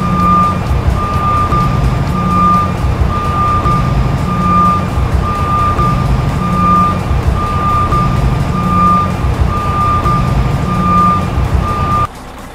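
Truck reversing alarm beeping, a single high tone switching on and off a little faster than once a second, over a low engine rumble; both cut off suddenly near the end.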